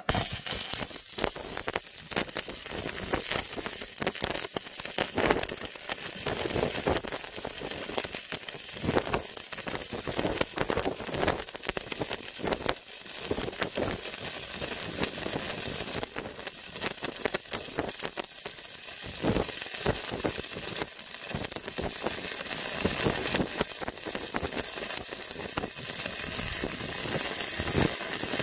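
Stick-welding arc from a Paton ECO-200 inverter welder burning an E6013 rod: one long bead of steady, uneven crackling and sizzling, struck at the start.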